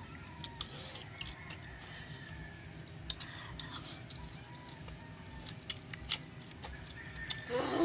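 Boiled balut eggshells being cracked and peeled by hand: many small, crisp, scattered clicks, with a short louder call right at the end.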